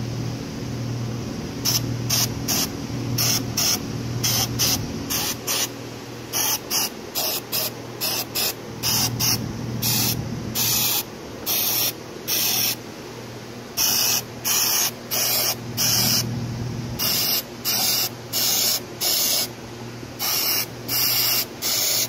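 Aerosol can of dye-penetrant developer sprayed onto cylinder-head valve seats in many separate hissing bursts, some quick and some about half a second long, starting about two seconds in.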